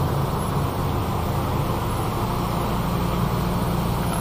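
Street traffic: a vehicle engine running with a steady low hum.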